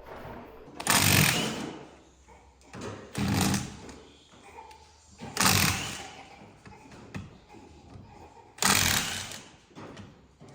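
Four short bursts from a power tool, each about a second long, spaced two to three seconds apart during the teardown of a front drive unit.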